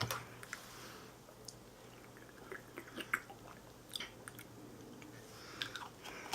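Faint mouth sounds of someone tasting a drink: scattered small clicks and smacks, over a low steady hum.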